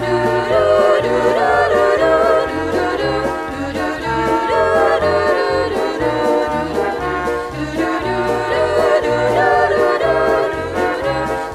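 A small vocal group singing religious music in close harmony, with a low bass line moving in steady held notes underneath.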